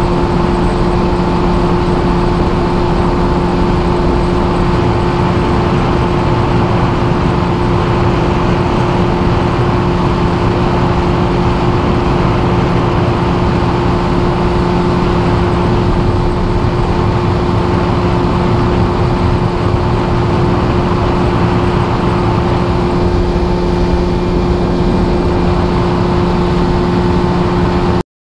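Mercury 30 hp two-stroke outboard motor running at a steady speed, a constant drone over a wash of noise, cutting off suddenly near the end.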